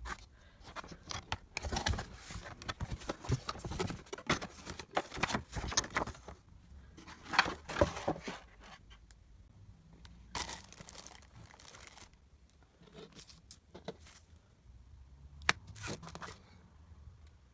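Plastic wrap and cardboard packaging being crinkled and torn open by hand in several bursts of crackling, with short pauses between.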